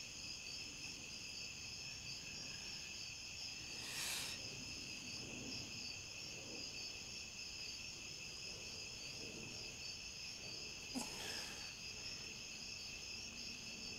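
Steady, high-pitched trilling of insects, with a brief noise about four seconds in and a short tap near eleven seconds.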